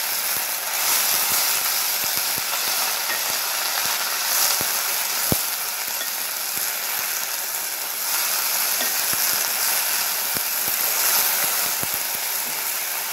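Freshly washed mint leaves frying with dried red chilies and coriander seeds in a hot pan. The water on the leaves sizzles off steadily while a spatula stirs, clicking and scraping against the metal pan, with one sharper knock about five seconds in.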